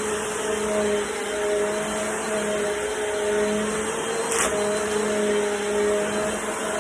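Bissell Power Force Compact bagless upright vacuum cleaner running steadily while vacuuming a floor, its motor giving a steady hum over the rush of air. There is a brief click about four and a half seconds in.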